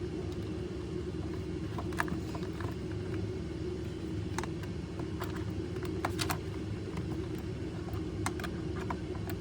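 Scattered light metallic clicks of a hex key and wrench tightening a nylon-insert lock nut, over a steady low machine hum.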